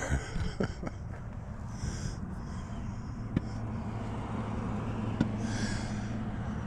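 A steady low hum with an even tone, growing slightly louder, with a few soft breaths close to the microphone and several light clicks.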